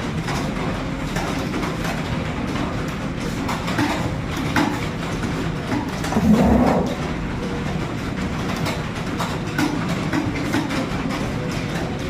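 Fast typing on computer keyboards during a timed speed test: a dense, steady clatter of key clicks. About halfway through there is one short, louder low bump.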